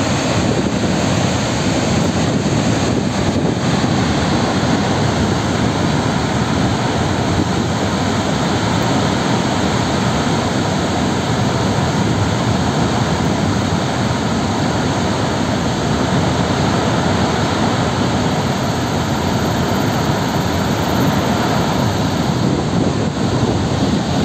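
Floodwater pouring through a dam's open spillway gates and crashing down the spillway face: a loud, steady rushing noise.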